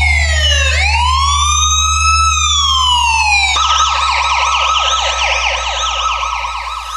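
Electronic police siren: a slow wail that sweeps down and then rises and falls, switching about three and a half seconds in to a fast yelp warbling several times a second, over a steady low bass hum.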